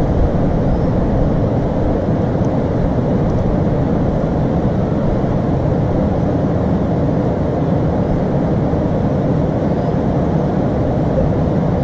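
Steady low rushing of a mountain river running over rocks.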